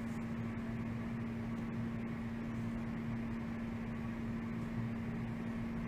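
A steady low hum with an even hiss beneath it, unchanging throughout: background machine or room noise.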